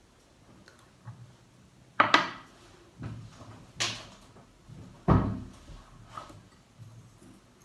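Four sharp knocks and clatters of household objects being handled and set down, the loudest about two seconds and about five seconds in.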